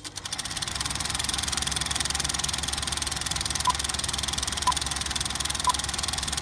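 Old film projector running with a rapid, even clatter. From a little past halfway a short beep sounds once a second, three times, ticking off a film countdown leader.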